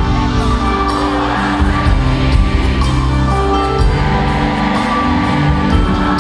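Live amplified band music with singing and a steady beat, heard from among a concert audience.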